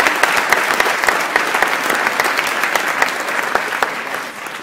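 Audience applauding, with a few close individual claps standing out sharply. The applause starts to die away near the end.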